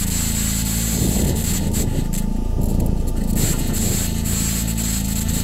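Synthesized electronic soundscape: low tones gliding down and back up in repeating arcs every second or so, over a steady high hiss and a faint held tone.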